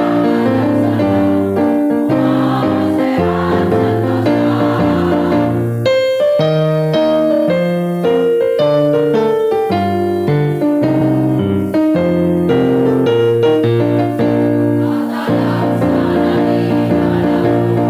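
Women's choir singing in harmony with keyboard accompaniment; for several seconds in the middle the voices drop back and the keyboard plays on its own before the choir comes in again.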